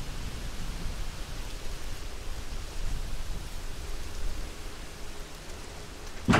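Steady outdoor noise: an even hiss over a low, fluctuating rumble. A sharp knock comes near the end.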